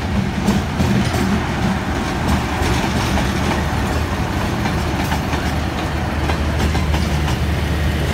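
A Pakistan Railways HBU-20 diesel-electric locomotive runs past with a steady low engine hum. Behind it, the passenger coaches' wheels clack over the rail joints.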